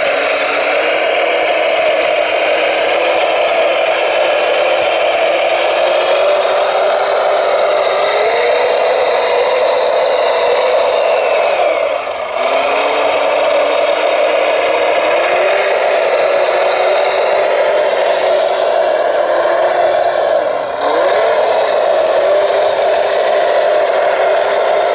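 Electric drive motors of radio-controlled scale construction vehicles whining steadily as they run. The pitch drops briefly and climbs back, once about halfway through and once near the end, as the models slow and speed up again.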